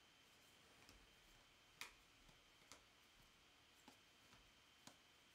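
Faint, irregular light clicks and taps of trading cards being handled, about six in all, the loudest about two seconds in, over a faint steady hiss.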